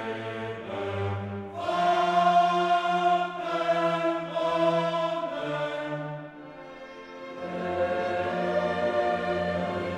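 Background music: a choir singing long held notes with orchestral accompaniment.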